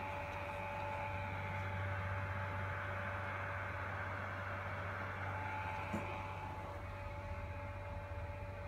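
Steady electrical hum with two faint steady whining tones over an even hiss, and one small click about six seconds in.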